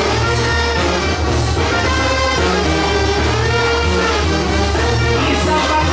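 Banda sinaloense playing live through a concert sound system: clarinets and brass over a tuba bass line, with a steady beat.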